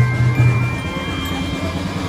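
Music playing: a low bass line under long held high notes.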